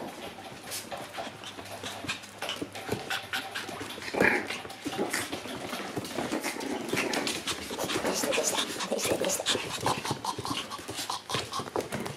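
Shiba Inu puppies play-fighting: quick scuffles and claws clicking on a hard floor, with short puppy yips and growls, loudest about four seconds in.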